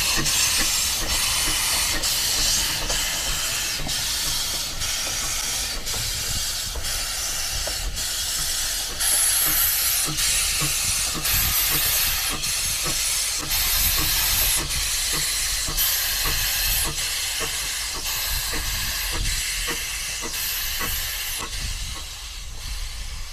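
An 1897 Baldwin narrow-gauge steam locomotive working slowly, with a steady hiss of steam from its open cylinder drain cocks and even exhaust beats about once a second. The sound fades somewhat near the end as the engine draws away.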